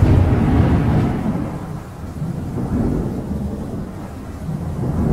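Rolling thunder with rain: a loud low rumble that comes in at the start, eases off after a second or two and swells again a little, over a steady hiss of rain.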